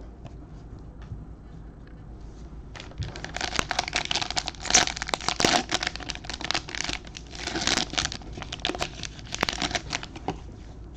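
Plastic wrapper of a trading-card pack crinkling as it is torn open and crumpled, a dense run of crackles starting about three seconds in and dying down near the end.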